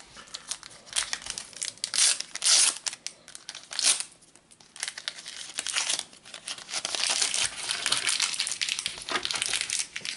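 Foil wrapper of a Panini Adrenalyn XL trading-card packet being torn open and crinkled by hand. The loudest tearing bursts come in the first four seconds, followed by steadier crinkling as the wrapper is pulled apart.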